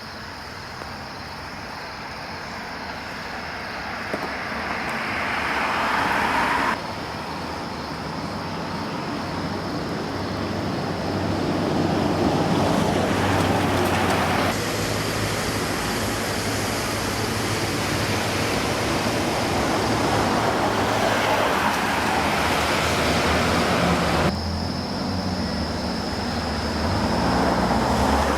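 Cars driving on flooded roads, their tyre and water-spray noise swelling as they approach. The sound cuts off abruptly several times.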